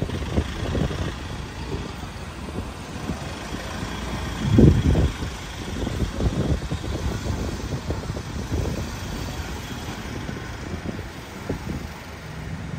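Isuzu Elf Giga minibus's diesel engine running as the bus pulls away at low speed, an uneven low rumble with one louder surge about four and a half seconds in.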